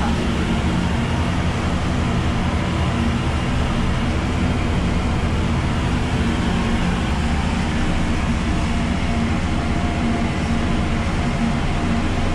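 Steady, loud machinery drone of a ship's engine room, with several low, even hum tones and no change in pitch or level.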